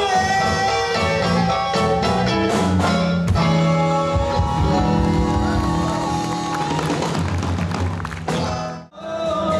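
Live 1950s-style rock and roll band playing an instrumental passage without vocals: electric bass, guitar, drums and keyboard. The sound drops out suddenly for a moment near the end, then comes back.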